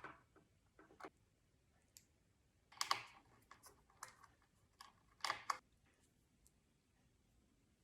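Small plastic clicks and taps from handling and fitting parts of a Snaptain S5C toy drone with a tiny screwdriver, with two louder bursts of clatter about three and five and a half seconds in.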